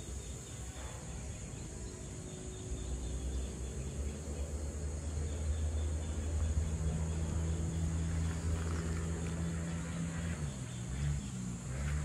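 Insects keep up a steady high-pitched drone throughout. Under it, a low hum of unclear source swells in the middle and wavers near the end.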